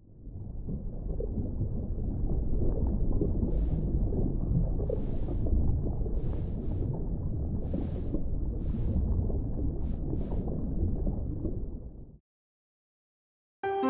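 Underwater sea ambience: a steady low rumble of moving water with several short hissing bursts over it. It fades in at the start and cuts off abruptly about a second before the end.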